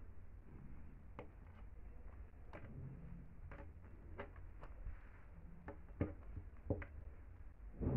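Faint scattered clicks and taps of hands working a metal crochet hook and cord through crocheted fabric, over a low steady hum, with a louder knock at the very end.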